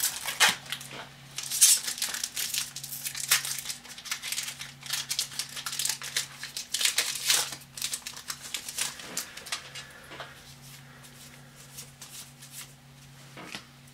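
Foil Magic: The Gathering booster pack wrapper crinkling and being torn open, a dense run of crackles for the first several seconds, then softer, sparser clicks of the trading cards being handled.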